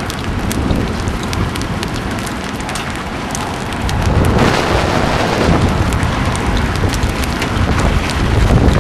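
Large hail, golf-ball size, pelting down in a supercell storm: a dense hiss of falling ice and water broken by many sharp clicks of single stones striking hard surfaces, with wind buffeting the microphone. It grows louder about four seconds in and again near the end.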